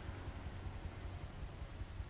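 Bajaj motorcycle engine running at a distance as the bike sets off toward the microphone, heard as a faint low rumble under a steady outdoor hiss.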